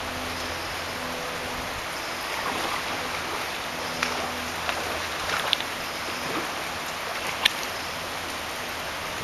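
Shallow stream water running over a stony bed, a steady rush, with a few short sharp splashes or ticks, the sharpest about seven and a half seconds in.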